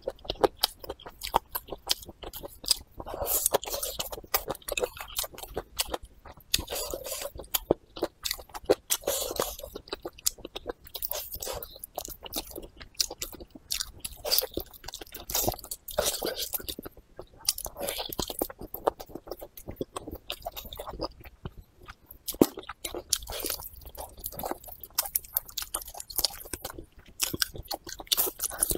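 A person chewing and biting close to the microphone, eating braised pork trotter, with a dense run of small irregular clicks.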